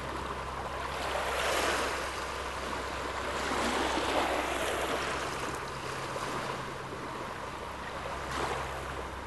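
Small waves washing onto a sandy Lake Superior beach: a steady surf wash that swells and eases every few seconds, over a steady low hum.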